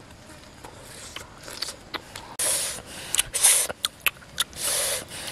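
Close-up eating sounds: roasted chicken being torn apart by hand and chewed. Scattered small wet clicks, then three louder crackling, hissing bursts from about two and a half seconds in.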